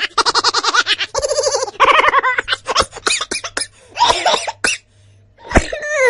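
Exaggerated, high-pitched laughter in several runs of quick 'ha' pulses, broken by short clicks, with a falling squeal near the end.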